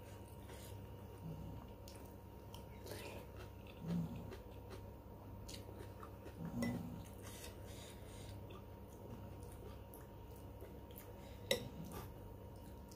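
Quiet eating sounds: a steel spoon scraping and clinking in a ceramic soup bowl, with chewing. One sharp clink of the spoon against the bowl near the end is the loudest sound.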